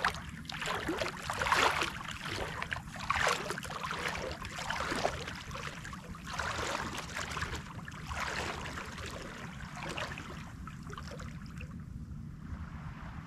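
Legs wading through knee-deep shallow water, a sloshing splash with each stride, getting fainter near the end, over a steady low rumble.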